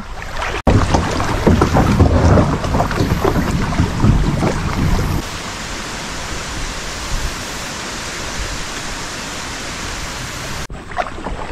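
Water rushing over a shallow riffle past a kayak, with wind rumbling on the microphone. About five seconds in it gives way to a steadier, quieter hiss.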